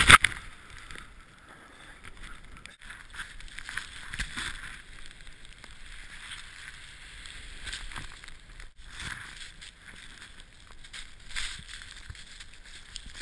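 Deep powder snow hissing and rushing under a rider sliding downhill, swelling and easing several times as the rider turns.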